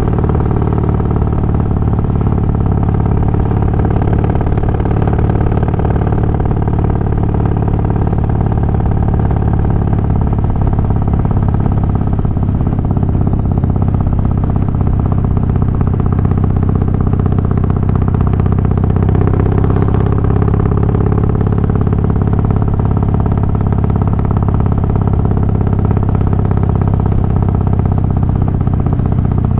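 Harley-Davidson Twin Cam 88 V-twin, fitted with Feuling 525 cams and hydraulic cam chain tensioners, running steadily without revving.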